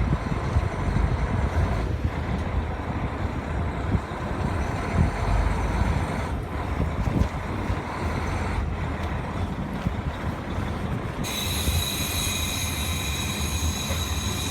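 Diesel railcar rumbling steadily, heard from inside the car as it arrives at the station. Late on, a high-pitched squeal of several ringing tones starts suddenly and holds as the train brakes to a stop.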